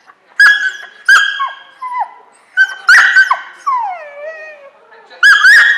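A dog barking in a run of high-pitched yips, about eight in all, with a long falling whine about four seconds in.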